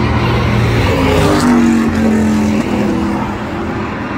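Engines of compact pickup race trucks running at speed around a short oval, several engine notes overlapping and rising and falling as they go through the turn. The loudness dips briefly about two and a half seconds in as one note drops away.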